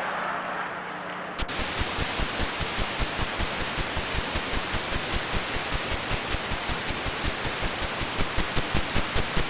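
A soft rush of noise for about a second and a half, then static hiss of a blank videotape that cuts in suddenly, with a sharp regular ticking about four times a second.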